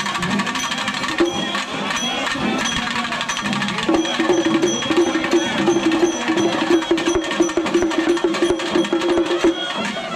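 Singari melam: chenda drums played in a fast, dense roll, with cymbals ringing about once a second. A held steady note sounds over the drums from about four seconds in until shortly before the end.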